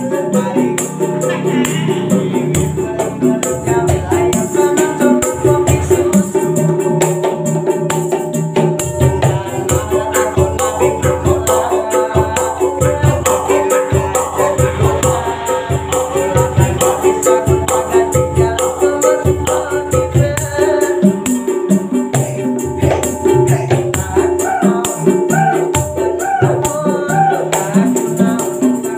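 Indonesian busker music: kendang paralon, hand drums made of PVC pipe, slapped in a steady jeduk-jeduk dangdut-koplo beat, with a strummed ukulele, a rattling hand shaker and a man singing.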